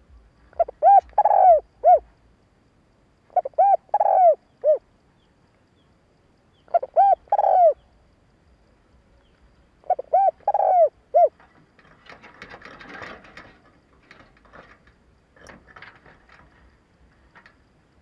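Spotted dove cooing: four phrases of three or four coos each, a few seconds apart, with the third note of each phrase the longest. A couple of seconds of scratchy noise follows the last phrase.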